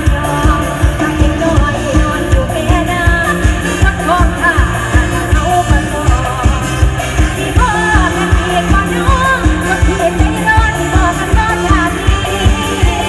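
Live Thai luk thung–mor lam band played through a PA: a woman sings the melody over drum kit, bass, guitars and keyboards with a steady, heavy beat.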